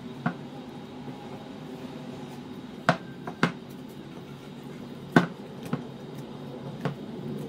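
Hands kneading stiff flour dough in a glass bowl: about six sharp, irregular taps and knocks of hand and dough against the glass, over a faint steady hum.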